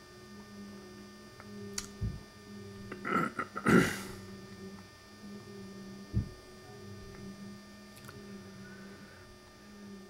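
Steady low electrical hum, with a few faint clicks, a brief rustle of handling noise about three to four seconds in, and a low thump about six seconds in.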